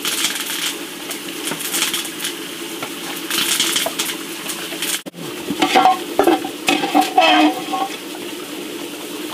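A pack of dogs eating together, with wet chewing and lapping, while a metal ladle clinks against a pot. About halfway through come a few louder, pitched cries from the dogs.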